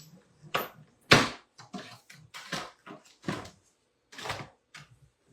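Irregular sharp clicks and knocks, about ten of them and loudest about a second in, from handling an embossing folder and a die-cutting and embossing machine.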